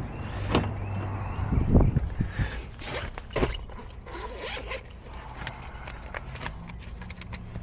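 A locksmith's gear being handled: irregular scrapes and sharp clicks, with a zip-like rasp about three seconds in. A low steady hum runs underneath.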